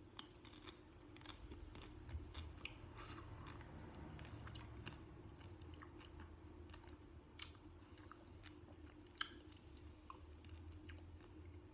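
Faint chewing and biting of a chocolate-coated Bulla Crunch ice cream bar, its crisp coating crackling in small irregular clicks, over a low steady hum.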